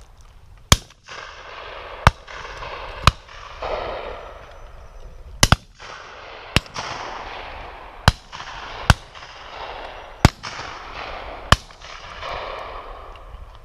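Shotguns firing at driven pheasants and partridges: about ten shots, one a quick pair about halfway through, each followed by a long rolling echo.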